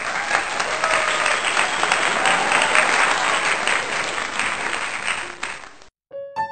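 Studio audience applauding, a dense patter of many hands clapping that cuts off suddenly near the end. Just after, keyboard notes begin as a song starts.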